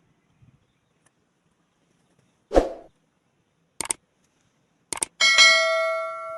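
A dull thump, two pairs of light clicks, then a small metal object clanging and ringing out, dying away over about a second and a half.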